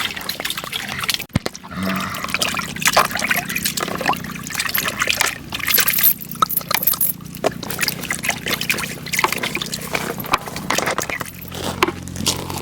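Water pouring and splashing in irregular splashes as pieces of boneless chicken are washed clean, with a faint low steady hum underneath from about two seconds in.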